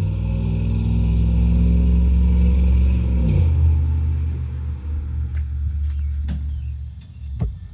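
A car engine running close by, a low steady drone whose pitch drops about three seconds in and then fades out near the end. A few sharp knocks in the second half, the loudest just before the end.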